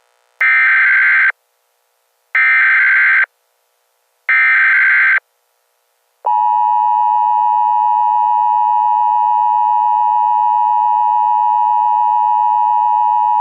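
Emergency Alert System SAME header: three harsh, buzzy bursts of data tones, each just under a second long and about two seconds apart. About six seconds in, the steady EAS attention tone starts, signalling that an emergency alert message is about to follow.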